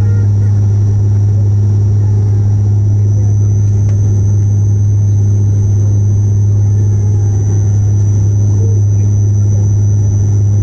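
Bombardier Q400's turboprop engine and six-bladed propeller heard from inside the cabin on final approach: a loud, steady low drone with a thin high whine above it that rises a little about three seconds in.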